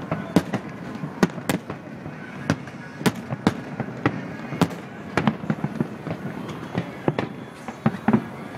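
Aerial display fireworks shells bursting: a run of sharp bangs, roughly two a second and irregularly spaced, some coming in quick pairs.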